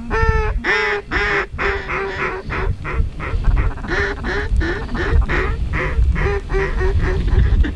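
A flock of waterfowl calling overhead: many short, rapidly repeated calls from several birds at once, overlapping throughout, over a low rumble.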